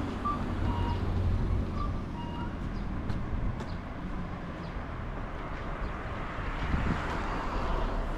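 Road traffic: a steady low rumble that swells briefly about seven seconds in, as a vehicle passes.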